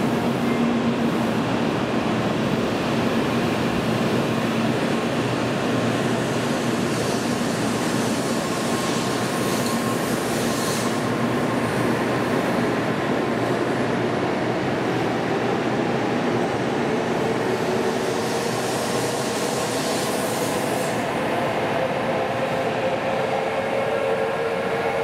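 Kyushu Shinkansen bullet train pulling out of a station and gathering speed past the platform, its running noise steady throughout. A motor whine rises slowly in pitch through the second half.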